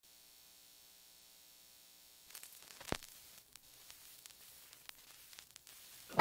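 Faint crackle and scattered clicks of surface noise from a 45 RPM acetate disc before the music, with one louder click about three seconds in. For the first two seconds or so there is only a faint steady hum.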